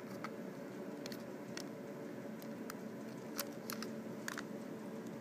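Scattered light clicks and taps as metal forceps and a wire are handled inside a model skull, about seven in all, over a steady low hum.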